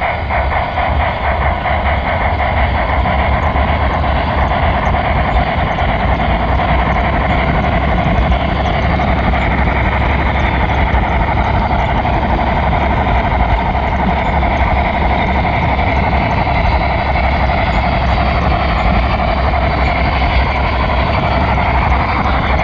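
HO scale model train running with the camera riding on it: a steady motor whine with the rolling rattle of the metal wheels on the track, heard close up.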